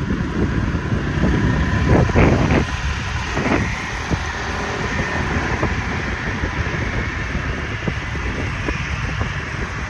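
Riding on a motorbike: a steady engine rumble with wind buffeting the microphone, and a few brief sharper sounds about two to three and a half seconds in.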